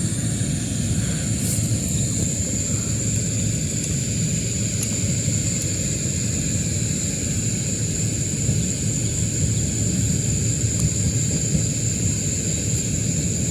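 A steady, high-pitched drone of insects over a constant low rumble.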